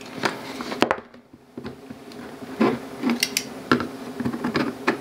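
A knife scraping and clicking against a cardboard phone box while cutting its seal, with irregular handling noises from the packaging.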